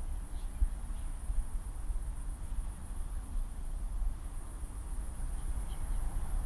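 Low, steady rumbling ambience with a steady high-pitched hiss or chirring above it and no clear events.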